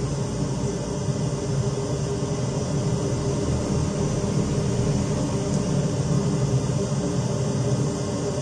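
Steady test noise played through a 3-way line array speaker box for computer measurement while its crossover delay is being set: a constant rushing hiss, strongest in the bass.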